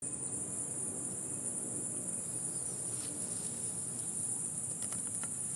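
Night chorus of crickets and other insects: a steady, high-pitched trilling, with a low rumble of background noise underneath.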